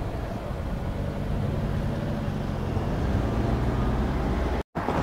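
Road traffic at a railway level crossing: car engines idling and pulling away across the tracks as the boom gates lift, a steady low rumble. The sound cuts out for a moment near the end.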